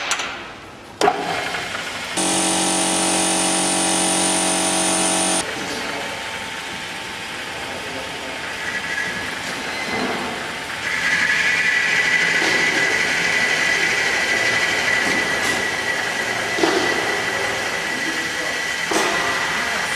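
Taper rod sharpening machine running: a steady pitched hum for about three seconds near the start, then a steady high whine from about halfway on, with a few short knocks.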